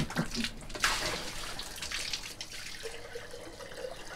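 Water from an electric well pump's hose pouring and splashing into a clay jug and a stone trough as the jug is rinsed. There is a faint rising tone near the end.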